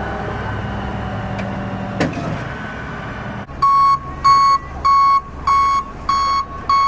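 Flatbed tow truck's engine running steadily, with a single click about two seconds in. About halfway through, the truck's backup alarm starts beeping: a loud, high beep repeating about three times every two seconds.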